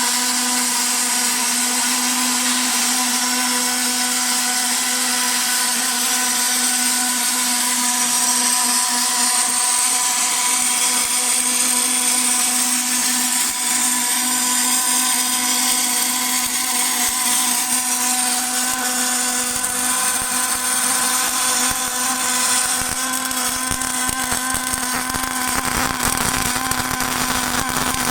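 Automatic longitudinal seam welding machine for fire extinguisher shells running, giving a steady electrical-mechanical hum with a high whine above it. Rougher low-pitched noise joins in during the second half.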